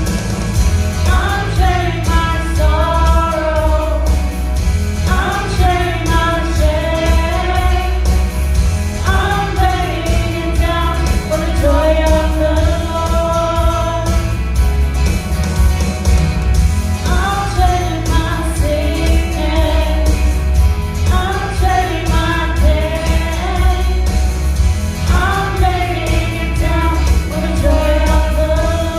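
Contemporary worship song: voices singing over a full band with strong bass, the sung phrases starting about every four seconds.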